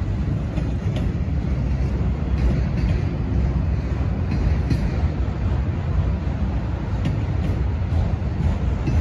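Loaded autorack freight cars rolling past on the rails, a steady low rumble with a few faint wheel clicks scattered through it.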